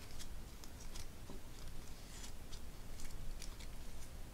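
Faint crinkling and rustling of a fringed paper strip being handled and fluffed between the fingers, a scatter of small, light crackles.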